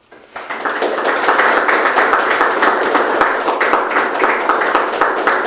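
Audience applauding: many hands clapping in a dense, steady patter that starts a moment in.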